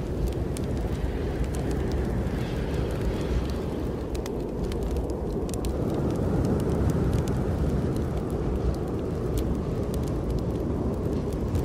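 Snowstorm wind blowing steadily in a low, dense rush, with a wood fire crackling over it in many small, sharp pops.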